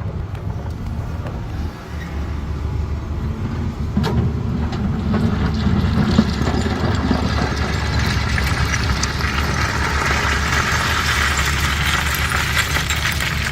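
Diesel engine of a CAT 320D excavator running steadily, getting louder about four seconds in as it works under load, with a rising hiss-like mechanical noise over the second half.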